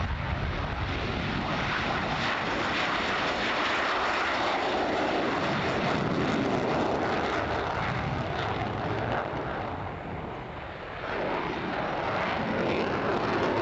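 Grumman F-14A Tomcat's twin TF30 turbofan jet engines at full power as it takes off and climbs away: a loud, steady jet roar that dips briefly about ten seconds in, then swells again.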